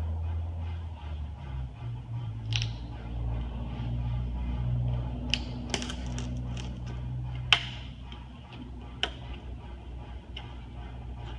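A handful of sharp clicks and small knocks from hand work at the top edge of a car windshield, the loudest about two-thirds of the way through, over a steady low hum.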